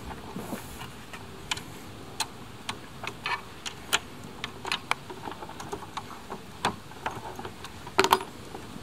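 Irregular sharp clicks and taps of hand tools on bolts and metal parts, from unscrewing the Kugoo M3 Pro electric scooter. A louder double click comes near the end.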